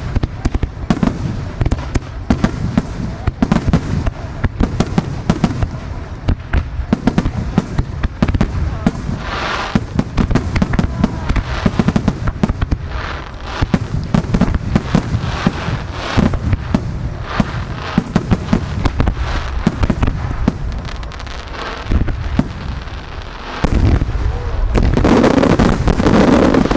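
Fireworks grand finale: a dense, continuous barrage of shell bursts and crackling reports with no pause, which grows louder and heavier about three-quarters of the way through.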